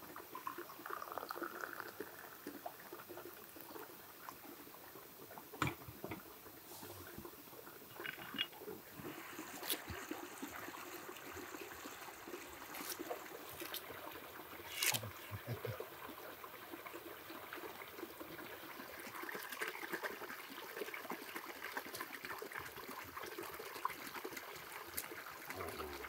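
Tea pouring from a porcelain teapot into a glass, rising in pitch as the glass fills over the first couple of seconds. After that come scattered light clicks and knocks, the sharpest about fifteen seconds in.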